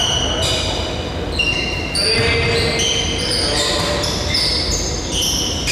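Basketball being played on an indoor court: the ball bouncing and sneakers squeaking in many short high-pitched chirps, with voices over the steady din of the hall.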